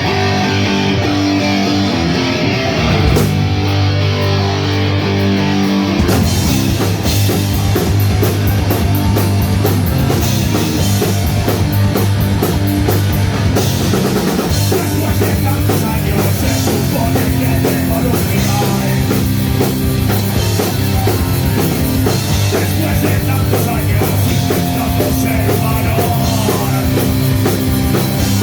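Punk rock band playing live: a guitar opens the song alone, then the drums and the rest of the band come in about six seconds in and carry on at full volume.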